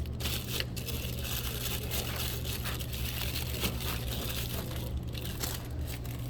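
Plastic-wrapped snack packages crinkling and rustling as they are handled and loaded into a vending machine's spiral slots, with many small crackles, over a steady low hum.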